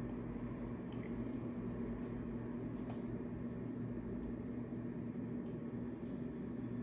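A steady low hum with a few faint, short clicks and soft handling noises spread through it, as a watch strap is fitted back onto the watch case.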